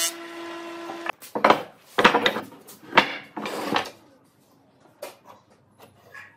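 A combination planer's motor hums steadily and stops about a second in. Then comes a run of loud wooden knocks and clatter as planed boards are handled and set down, and after that only faint light taps.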